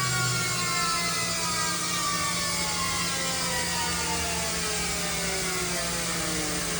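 Mazak VCN-510C-HS machining-center spindle winding down from its 15,000 RPM maximum: a whine of several tones falling steadily in pitch, over a steady low machine hum.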